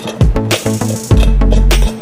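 Background music with a steady beat of heavy kick drum and bass under sharp percussion hits.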